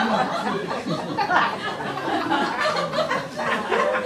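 Audience of many people laughing together.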